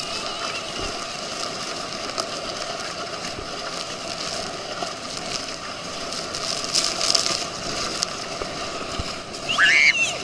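Water rushing and splashing against an inflatable tube towed at speed behind a motorboat, a steady hiss of spray that swells about seven seconds in. A brief high squeal comes near the end.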